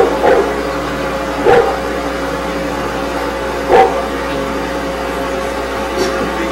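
A dog barking, single short barks a couple of seconds apart: two in quick succession at the start, then one about a second and a half in and another near four seconds. Underneath runs a steady hum.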